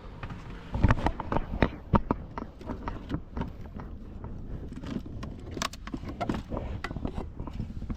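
Irregular clicks and knocks of plastic cabin trim and storage-compartment lids in a 2024 Tesla Model 3 being opened and handled while someone rummages for an outlet.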